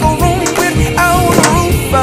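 Music: a song with a sung melody over a regular beat and bass.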